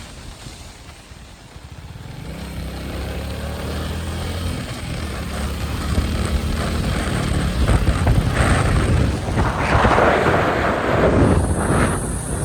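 Royal Enfield Meteor 350's single-cylinder engine running while ridden. It is quiet at first, then its note comes up about two seconds in and grows steadily louder, with a loud rush of noise over it near the end.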